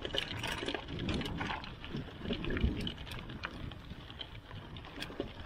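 Bicycle rolling over a gravel and dirt track: tyres crunching on loose stones, with irregular quick ticks and rattles from the bike over a low rumble.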